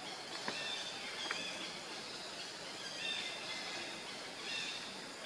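Outdoor ambience of short, high bird calls repeated several times over a steady background hiss, with two sharp clicks in the first second and a half.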